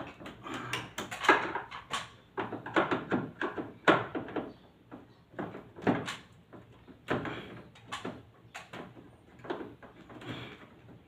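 Irregular plastic clicks, knocks and rattles as the casing and parts of a split-type air conditioner's indoor unit are handled and taken apart by hand.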